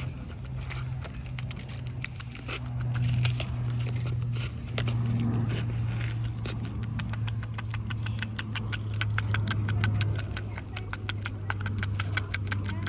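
A tamandua licking and eating watermelon flesh with its snout buried in the fruit: rapid clicking that grows denser from about halfway through. Under it runs a steady low mechanical hum.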